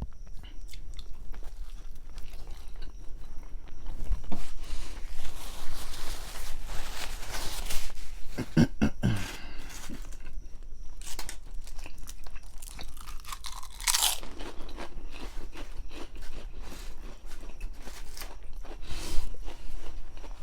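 Close-up chewing and crunching of a grinder sandwich, with many short crisp crunches as it is bitten and chewed.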